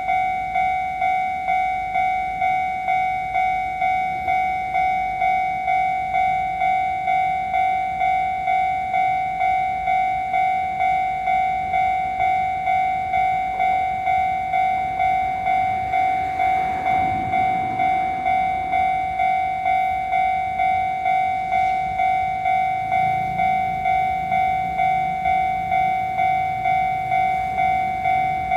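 Japanese railway level-crossing alarm ringing, an electronic bell striking evenly about one and a half times a second. A train's rumble rises faintly under it from about halfway through.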